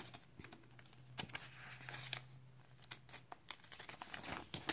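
Paper pages of an instruction booklet being flipped through by hand: faint rustling with many short, sharp page flicks.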